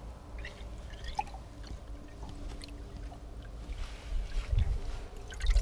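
Water sloshing and splashing in a boat's livewell as hands grab at the perch in it, over a low rumble and a faint steady hum. Louder low thumps come near the end.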